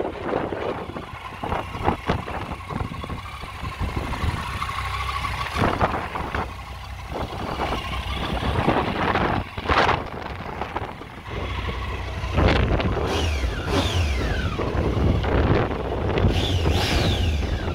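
Uneven vehicle noise with no steady engine note, broken by short knocks, growing heavier and lower about two-thirds of the way through, with a couple of falling whooshes near the end.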